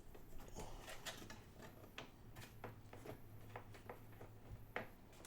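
Faint scattered clicks and taps, a dozen or so, of test equipment being handled on a workbench, over a low steady hum.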